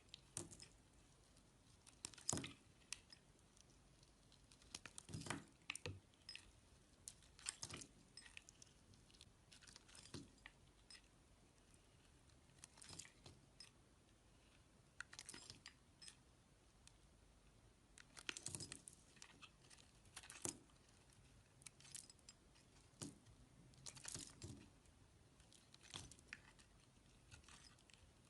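Knife carving into a bar of soap: faint, irregular scrapes and crunches as shavings are cut away, a few every couple of seconds.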